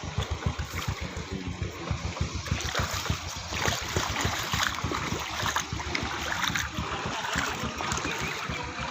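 Floodwater flowing and splashing, with a fast low throbbing running underneath.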